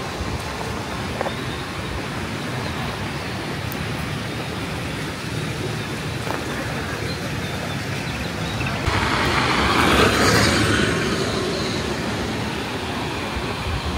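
Steady road traffic noise, swelling louder for about three seconds from about nine seconds in as a vehicle passes close.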